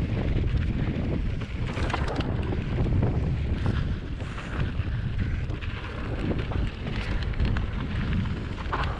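Wind buffeting the microphone during a GT Force mountain bike's descent on a dirt and gravel trail, over the rumble of the tyres. Scattered clicks and rattles come from the bike over the rough ground.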